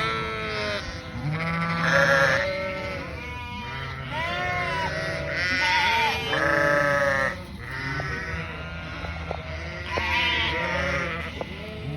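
Lambs bleating, several voices overlapping, one call after another.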